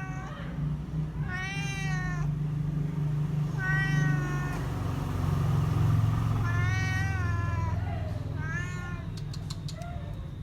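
Domestic cat meowing repeatedly: about five drawn-out meows a second or two apart, over a low continuous rumble.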